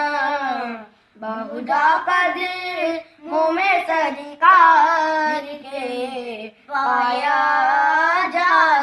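Young boys singing an Urdu naat, unaccompanied, in long sung phrases broken by short pauses for breath.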